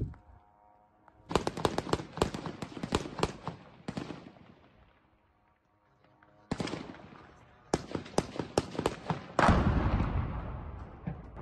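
Two bursts of rapid automatic gunfire, each a couple of seconds long, the first about a second in and the second past the middle, fired at attacking drones. Right after the second burst comes a heavy explosion with a long rumbling decay.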